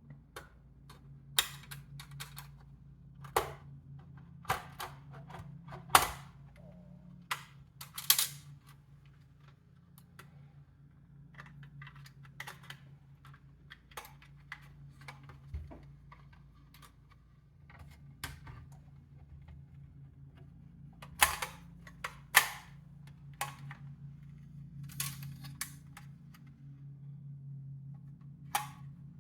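Irregular clicks and clacks of plastic and metal parts being handled during work on a Dell Optiplex 7010 USFF desktop, over a steady low hum. The sharpest clicks come in clusters near the start, about two-thirds of the way through and near the end.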